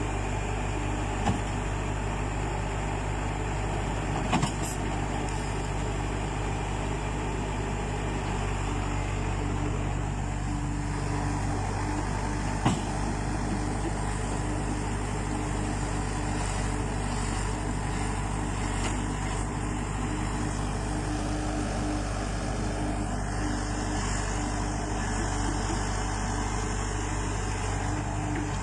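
Diesel engine of a Tata Hitachi EX70 excavator running steadily at an even speed, with a few sharp metallic knocks: once near the start, again a few seconds later, and once near the middle.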